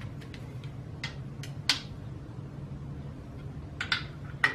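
Scattered light metallic clicks and taps of a hand wrench working the bolts of a freshly fitted timing cover on a V8 engine block, irregular and about nine in all, the sharpest about two seconds in and near the end.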